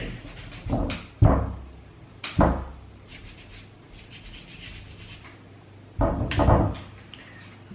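Suede brush scrubbed against the suede rim of a steering wheel to lift the flattened, shiny nap: a few loud separate strokes in the first couple of seconds and again about six seconds in, with lighter brushing in between.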